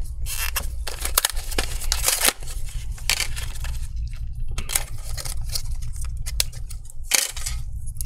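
Stiff plastic blister packaging crackling and rustling in gloved hands as a new M.2 SSD is taken out of it, in irregular bursts.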